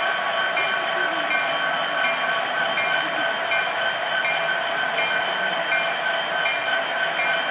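Onboard sound system of an MTH HO-scale Union Pacific EMD SD70ACe model locomotive playing a steady diesel engine sound through its small speaker. A short, high ringing note repeats about every two-thirds of a second.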